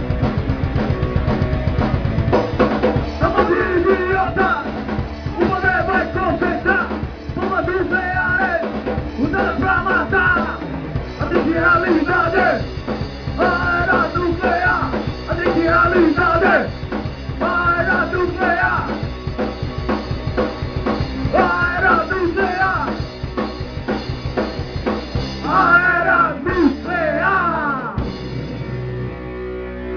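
Punk rock band playing live: drum kit, distorted electric guitars and bass, with a lead vocal coming in about two seconds in, sung in short repeated phrases. The full band cuts out near the end, leaving a guitar.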